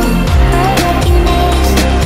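Background music with a steady beat: drums about twice a second under bass and a wavering melody line.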